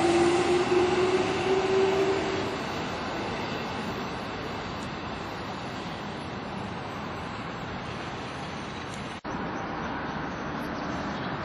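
Kintetsu electric commuter train pulling out of a station. Its motor whine rises in pitch and fades away over the first couple of seconds, leaving a steady hiss of background noise that cuts out for an instant about nine seconds in.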